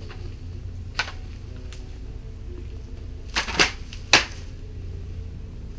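A few sharp clacks and knocks from a plastic-wrapped two-piece sliding tent ladder being handled and moved: one about a second in, two close together past the middle, and the loudest just after, over a low steady rumble.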